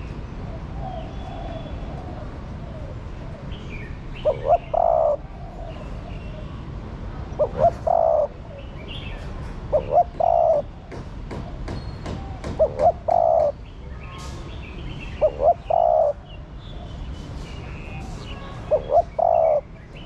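Female spotted dove cooing: six repeated phrases about every two and a half to three seconds, each two short notes followed by a longer one.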